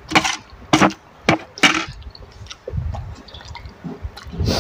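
Wet mouth sounds of someone eating rice noodles in a thick curry sauce: a few short, sharp smacks and slurps in the first two seconds, then softer chewing, with another loud smack near the end.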